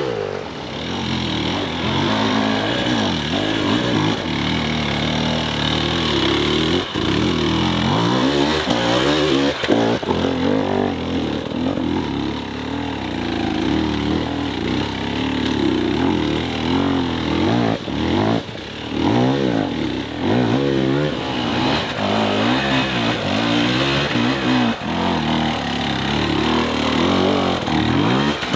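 Enduro dirt bike engines revving hard under load on steep, rough climbs, the pitch rising and falling over and over as the riders work the throttle.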